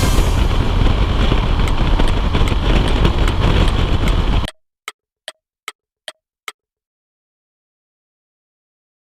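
Motorcycle riding noise, heavy wind rushing over the microphone together with the Honda CBF125R running, cuts off abruptly about halfway through. Five sharp clicks follow, evenly spaced at about two and a half a second, then silence.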